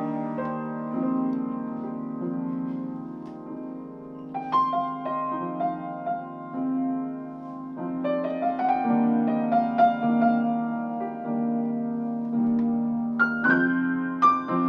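Loose, improvised piano playing on a keyboard: held chords ringing on, with new chords and melody notes struck about four, eight and thirteen seconds in.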